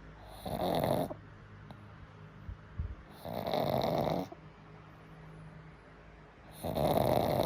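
A dog snoring loudly in sleep: three long snores, about three seconds apart.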